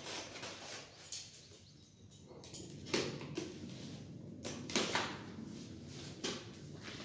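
Box cutter slicing through packing tape on a cardboard carton, in a series of short scraping strokes, the loudest about three and five seconds in.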